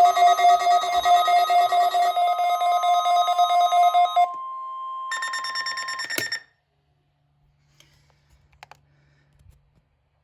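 Weather-radio emergency alert alarm during a weekly test: loud, rapidly pulsing electronic beeping over a steady warning tone. The beeping stops about four seconds in, the steady tone ends with a last short burst about two seconds later, and then only a few faint clicks are heard.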